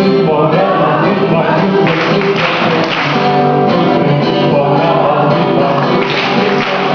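Christian gospel song with a group of voices singing together over instrumental backing that includes guitar.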